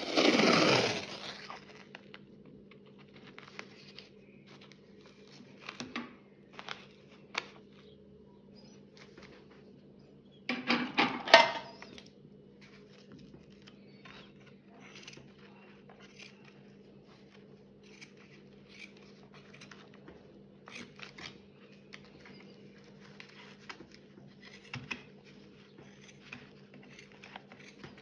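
Hands working with paper tape and scissors on macramé fringe. A noisy rip of tape comes off the roll about ten seconds in, after a similar burst at the very start. Scattered small clicks and snips follow as the cotton-cord fringe is trimmed along the tape.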